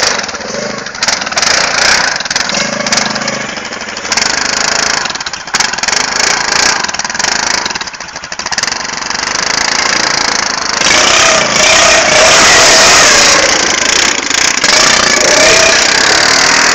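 ATV engine revving under heavy load, the pitch wandering up and down; about eleven seconds in it gets louder and higher as the throttle is opened, with the quad struggling in soft ground and digging itself in.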